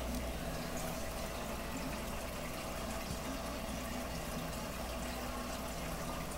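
Aquarium filter and aeration running: steady bubbling, trickling water over a low, even motor hum.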